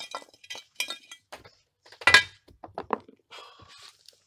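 Smokeless coal briquettes clinking and clattering against a metal pan as they are handled, a string of small clinks with a louder knock about two seconds in and another at the end.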